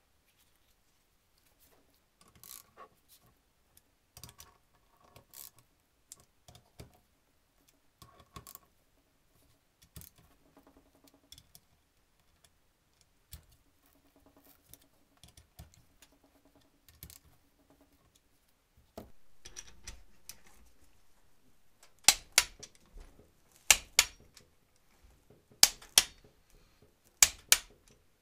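A ratchet wrench clicks softly as the wheel bearing's bolts are run into an aluminium steering knuckle. Then a click-type torque wrench gives four loud, sharp double clicks about every second and a half, one as each bolt reaches its set torque.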